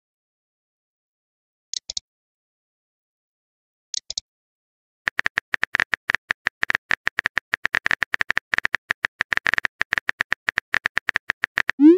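Phone keyboard typing clicks from a texting-story chat animation: a fast, even run of key taps starting about five seconds in as a message is typed out. Two short double clicks come earlier.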